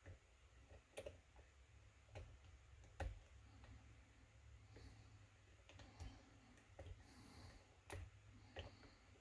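Faint, scattered clicks of a lock pick and tension wrench working the pins of a KIK lock cylinder, about half a dozen sharp ticks at uneven intervals.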